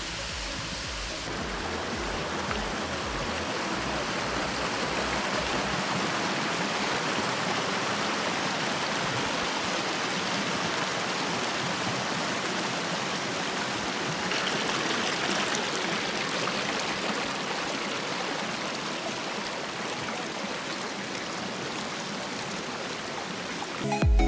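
Steady rush of running water from a shallow stream flowing over rocks.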